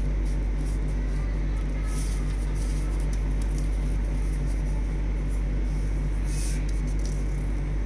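Steady low electrical hum, with faint rustles of paper being folded and pressed flat against a table, twice.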